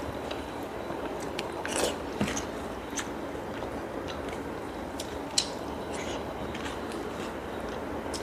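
Eating by hand: fingers squishing rice and curry gravy on a plate, with chewing mouth sounds and scattered small clicks, the loudest about two, three and five and a half seconds in.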